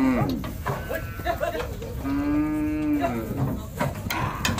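Zebu cattle mooing: the end of one long call right at the start, then a second long, steady moo about two seconds in that sags in pitch as it ends. A couple of sharp knocks near the end.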